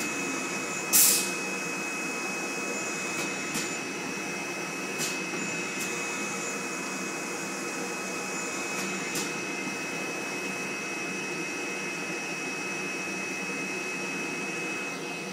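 Flatbed screen printing press running: a steady mechanical hum with a constant high whine, and short hisses of air from its pneumatic valves, a loud one about a second in and then three quieter pairs over the next eight seconds as the print head moves.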